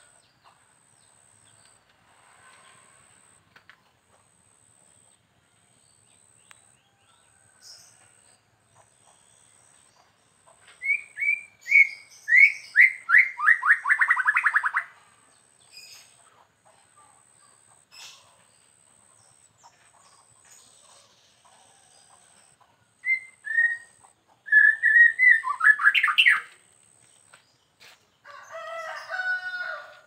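White-rumped shama singing in bursts of whistled notes: a run of rising notes that breaks into a fast trill about eleven seconds in, then a shorter phrase ending in a trill later on. A rooster crows near the end.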